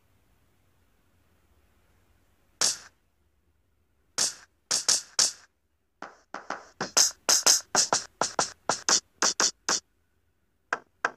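Percussion samples played on a phone drum-pad (octapad) app: a few single sharp hits, then a quicker run of about four hits a second that stops shortly before the end.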